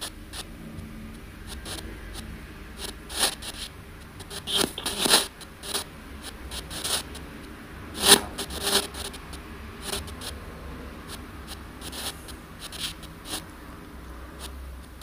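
Spirit box (ANC-Mini ghost box) sweeping through radio frequencies: a steady low hum under short, irregular bursts of static, the strongest about five and eight seconds in. The investigator takes a burst about eight seconds in for a spirit voice saying "we're helping you".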